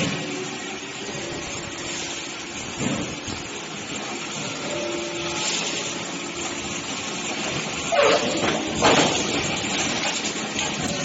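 Automated hot-forging and trimming line for shaft parts running: a steady mechanical hiss with a faint hum, broken by a few louder surges, one about three seconds in and two close together near eight and nine seconds in.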